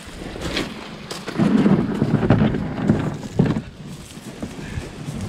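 Small dinghy's hull dragged over gravel on a pebble beach: a rough, grinding scrape from about a second and a half in until nearly four seconds.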